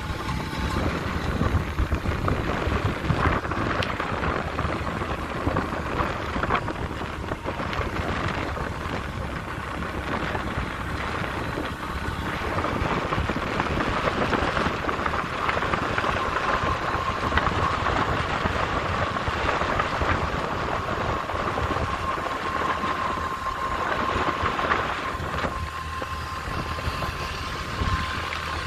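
Motorbike riding with wind rushing over the microphone and the engine running underneath. A faint steady whine comes in about halfway through.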